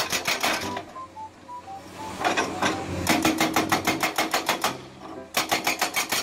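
Hydraulic breaker on a Komatsu PC200 excavator hammering rock, a fast, even run of about ten blows a second. It goes quiet for about a second near the start, then hammers again in runs with a short break near the end.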